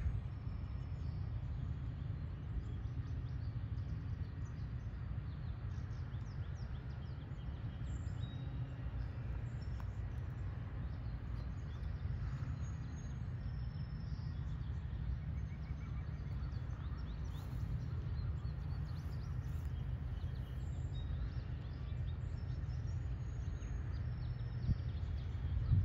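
Steady idle of a 1996 Honda Civic SiR's B16A four-cylinder VTEC engine, with birds chirping faintly.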